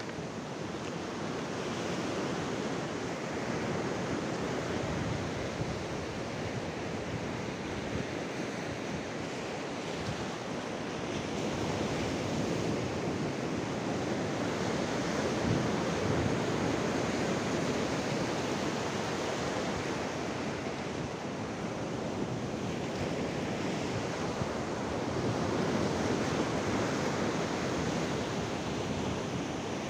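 Ocean surf breaking and washing over a rocky shoreline: a steady rushing noise that swells louder a few times as bigger waves come in.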